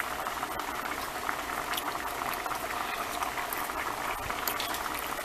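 A pot of lima beans and ham hocks boiling steadily, the broth bubbling with a constant hiss of small pops.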